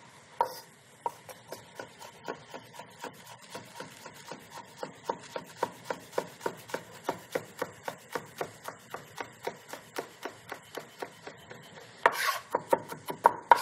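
Chef's knife dicing a jalapeño on a wooden cutting board: a steady run of quick knife strikes, about three a second, louder and denser near the end.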